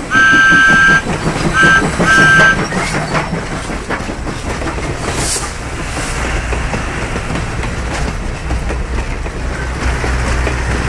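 Train whistle blowing a long blast and then two short ones, followed by the steady rumble of a train running.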